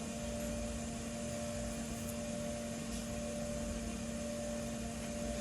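Steady electrical hum over a constant hiss, with two unchanging tones, one low and one mid-pitched.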